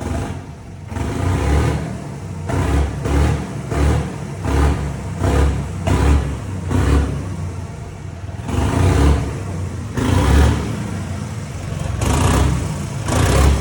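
John Deere 5305 tractor's diesel engine revved hard while standing, freshly started from cold: quick throttle blips, about two a second, then three longer revs in the second half.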